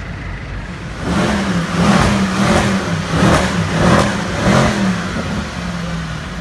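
Mercedes C63 AMG's 6.2-litre V8 revved in a series of about six quick throttle blips, each rising and falling, starting about a second in as the car pulls slowly past.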